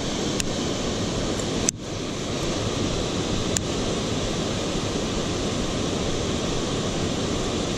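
Steady rush of flowing river water, with a few sharp clicks about half a second, two seconds and three and a half seconds in.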